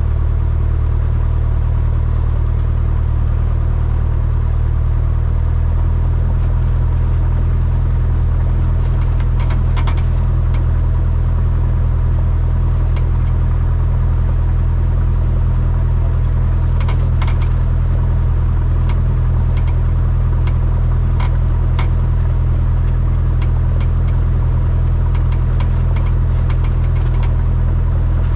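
Cessna 172N's four-cylinder Lycoming engine and propeller running at a steady drone, with scattered short clicks over it.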